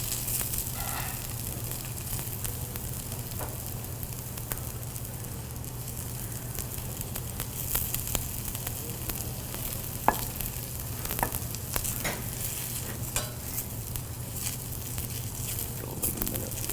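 Potato pancakes sizzling steadily in butter and canola oil in a frying pan, with a few sharp clicks about ten to thirteen seconds in.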